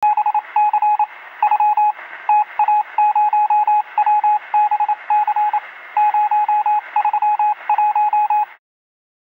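Intro sound effect of rapid electronic beeps in short and long pulses, Morse-code style, over a steady radio-static hiss; it cuts off sharply near the end.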